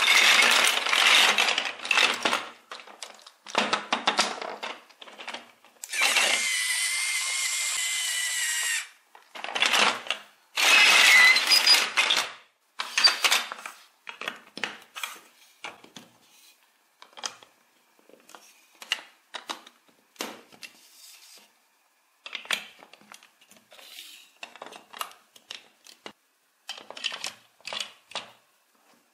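Chunky plastic toy building blocks clattering as hands rummage through a loose pile, with a steady high-pitched hiss for about three seconds partway through. After that come short, sparse clicks and taps as plastic bricks are pressed together and a wheel is fitted.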